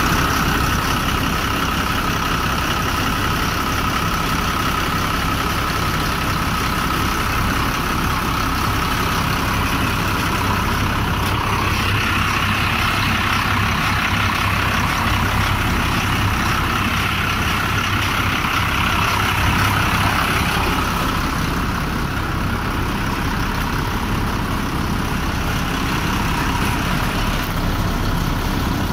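Ashok Leyland diesel engine of a Preet 987 combine harvester running steadily, with no change in speed. Its higher whir grows stronger for about ten seconds in the middle.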